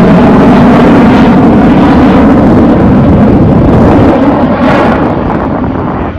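Loud jet engine noise from a military jet flying overhead, fading over the last two seconds as it moves away.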